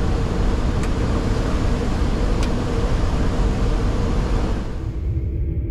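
Steady flight-deck noise of an Embraer E190 in flight: a loud, even rush of airflow and engine noise with a low hum. Near the end the hiss drops away abruptly, leaving mostly a low rumble.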